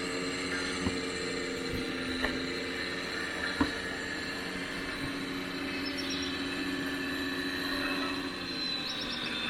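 Electric hydraulic pump of a 1/14-scale RC construction model whining steadily, with three sharp knocks in the first four seconds.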